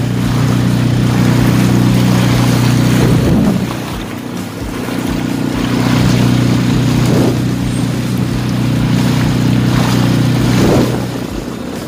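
Small motorboat's engine running steadily under way, its drone dipping briefly about three and a half seconds in and again near the end, with wind and water rushing past.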